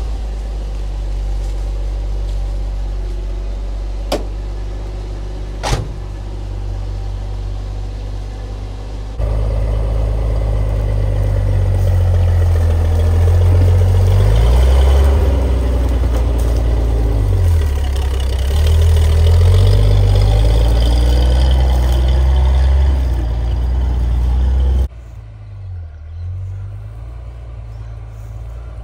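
1978 Bedford M Series 4x4 fire truck's petrol engine running, at first at a steady idle with two sharp clicks. About nine seconds in it is heard closer and louder, with the revs rising and falling. From about 25 seconds it is quieter, heard from further off as the truck drives.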